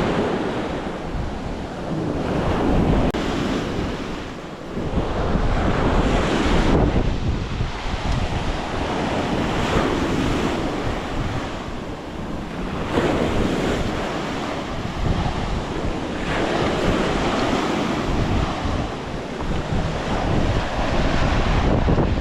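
Gusty typhoon wind rushing and buffeting the microphone, swelling and easing every few seconds.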